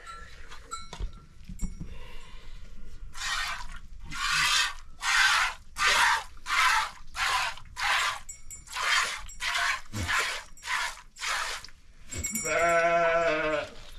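A goat milked by hand into a metal bowl: about a dozen squirts of milk hiss into the bowl in a steady rhythm, a little under two a second. Near the end a goat bleats once, a long call.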